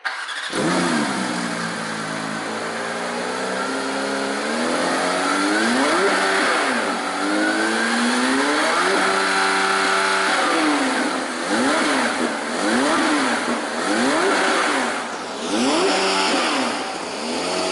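The 2023 Porsche 911 GT3 Touring's naturally aspirated flat-six revving while standing still. The revs climb slowly and hold high for a few seconds, then the engine is blipped sharply up and down several times in quick succession.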